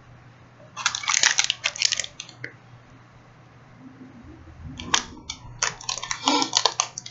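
Plastic snack wrapper of a Kit Kat bar crinkling and tearing as it is opened by hand, in two bursts of dense crackling.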